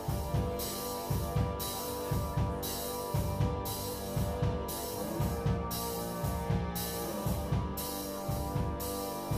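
Live rock band playing an instrumental passage: drum kit keeping a steady beat with bass drum and cymbals under electric guitars, bass guitar and keyboards.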